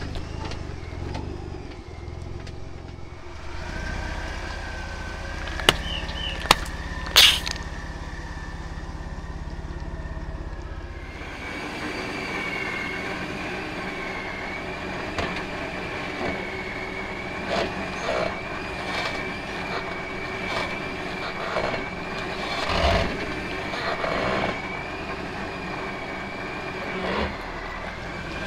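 A vehicle's engine runs at low speed as its big off-road tire rolls slowly over objects on concrete. There are three sharp clicks between about 6 and 7 seconds in, and later a scatter of small pops and crackles with a thin wavering whine above them.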